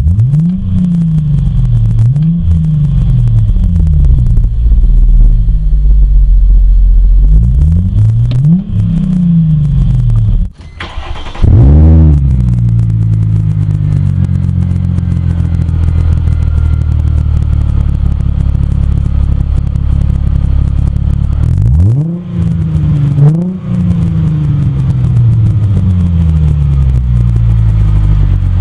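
Mercedes M113 5.0-litre V8 exhaust, revved in a series of quick throttle blips whose pitch rises and falls. After a sharp rev about eleven seconds in it settles to a steady idle, with two more blips a little before the end.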